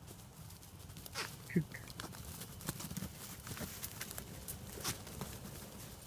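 Several goats trotting over a forest path, their hooves and snapping twigs making many quick, irregular clicks and crackles. A brief call stands out about a second and a half in.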